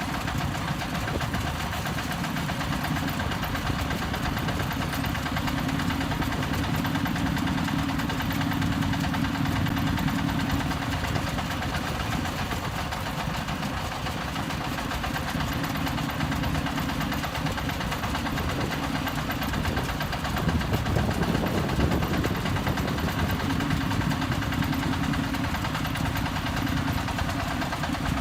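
Diesel engine of a self-loading concrete mixer running steadily, its level rising and falling slightly.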